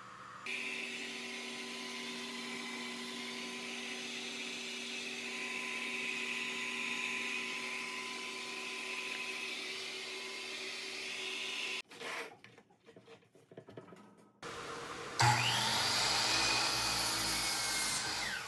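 A dust extractor runs steadily for about eleven seconds and cuts off suddenly. After a short lull with a few clicks, the Delta Cruzer 10-inch miter saw's motor starts loudly about fifteen seconds in, with a whine that falls in pitch over the last few seconds.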